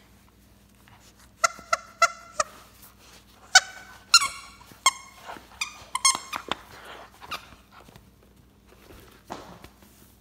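Squeaky dog toy chewed and squeezed by a German Shepherd puppy, giving a string of short, high-pitched squeaks, some falling in pitch, starting about a second and a half in and stopping about seven and a half seconds in.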